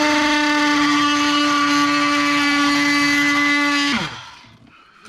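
Power tool motor running at full speed with a steady high whine while cutting into a wooden cabinet, the cut starting to smoke from friction. About four seconds in it is switched off and the whine glides down as it spins to a stop.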